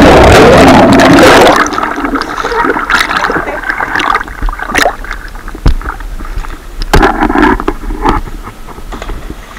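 Loud splash of a person entering a river pool with an action camera that goes underwater, lasting about a second and a half, followed by water sloshing and splashing as he swims, with scattered sharp knocks.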